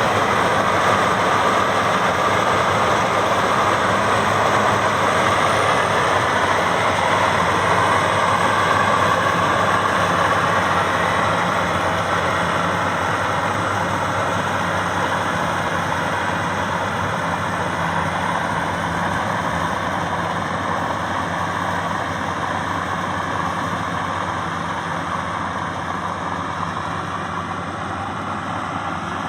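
Maxxi Bimo 102 combine harvester's engine running steadily with a dense mechanical din, growing gradually quieter over the second half.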